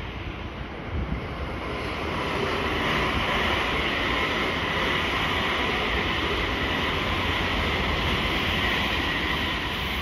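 JR West electric multiple-unit train passing: a steady rush of wheels on rails and running noise that builds over the first two seconds and then holds.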